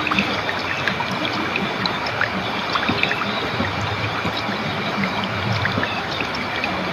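Water flowing and trickling steadily, a continuous babbling rush dotted with many small splashes.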